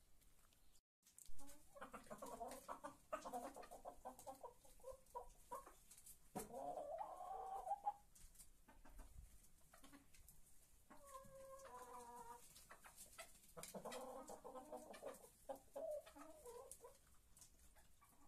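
Chickens clucking as they feed, in several bursts of short calls with pauses between them. The sound drops out briefly about a second in.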